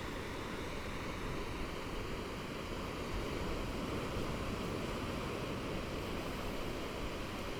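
Gentle ocean waves lapping against a beach shore, a steady wash of surf with no single wave standing out.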